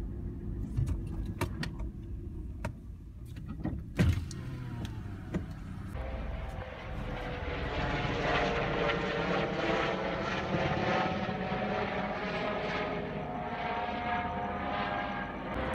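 Road rumble inside a moving car, with a few sharp knocks, the loudest about four seconds in. About six seconds in it cuts to a helicopter flying overhead, its rotor and engine heard steadily.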